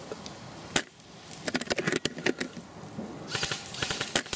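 Airsoft gunfire: one sharp crack about a second in, then irregular clicking and, near the end, a dense run of rapid clicks, heard as suppressed full-auto fire.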